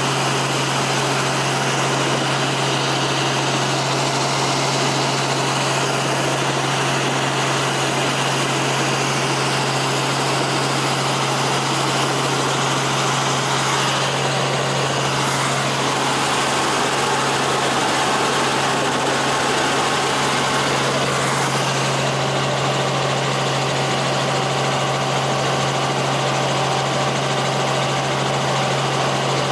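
Helicopter in flight heard from inside the cabin: a steady engine and rotor drone, a constant low hum under an even hiss, unchanging throughout.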